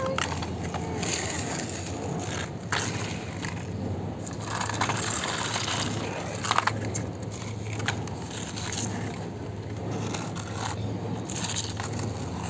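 Sand being scraped and crunched under plastic toy vehicles, in repeated swishes with occasional light knocks.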